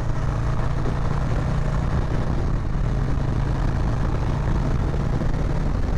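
Harley-Davidson Milwaukee-Eight 114 V-twin running steadily as the motorcycle rides along.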